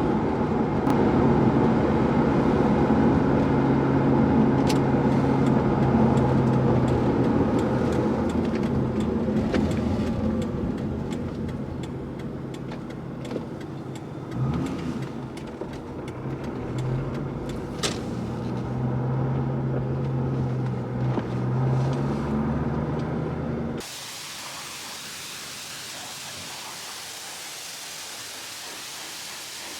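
2003–2004 Mustang Cobra's supercharged V8 heard while driving: a steady engine drone with road noise. It eases off around the middle, with a brief rising rev about halfway through, then picks up again. About 24 seconds in, it cuts abruptly to a steady, even hiss.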